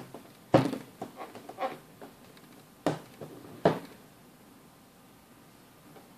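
Two plastic-backed Samsung Galaxy Tab 2 7.0 tablets handled and set down on a hard surface: a sharp knock about half a second in, a quick run of smaller knocks and rubs over the next second, then two more single knocks around three and four seconds in.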